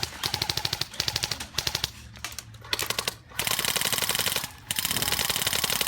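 Airsoft guns firing full-auto: rapid clattering bursts about a second long, one after another with short gaps.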